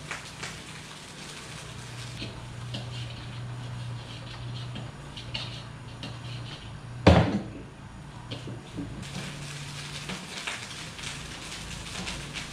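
Stir-frying in a wok over a gas burner: a metal spatula scraping and tapping against the wok over a steady low hum, with one loud bang about halfway through.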